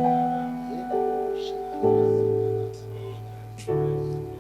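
Keyboard playing slow, held worship chords with a bass note beneath, moving to a new chord about a second in, again near two seconds, and again near the end.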